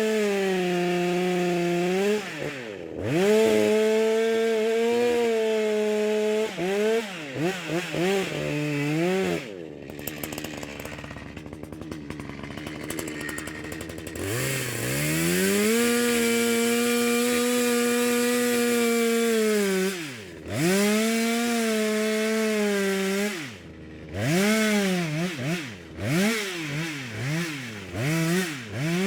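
Two-stroke chainsaw running at full throttle. Its pitch drops and climbs again many times as the throttle is let off and squeezed, in a quick run of blips near the end. For a few seconds near the middle it falls to a quieter, rougher sound.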